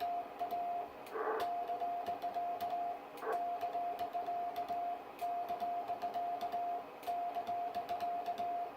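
Morse code sent by hand on a key: a steady sidetone near 700 Hz keyed on and off in dots and dashes, with faint clicks from the key. There are two short bursts of noise about one and three seconds in.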